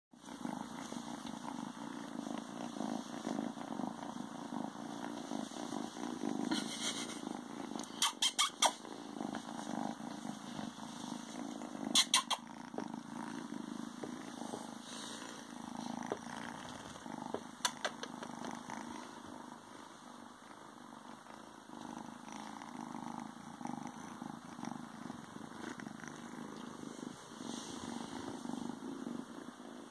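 Ragdoll kitten purring steadily, with a few sharp clicks about eight, twelve and eighteen seconds in.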